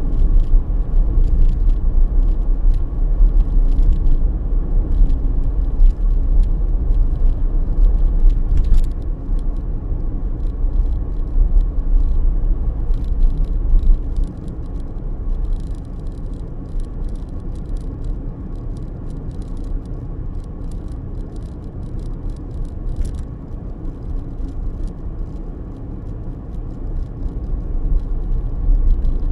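Steady low road rumble of a car's tyres and engine heard from inside the moving car, with faint rattles, dropping noticeably in level about halfway through.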